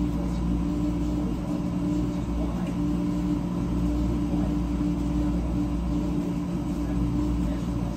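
Huebsch commercial tumble dryers running, a steady low hum with a rumble underneath.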